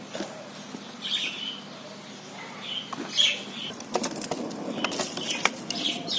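Wood fire crackling in a cement chula, with sharp pops coming thicker from about four seconds in. Birds chirp briefly now and then.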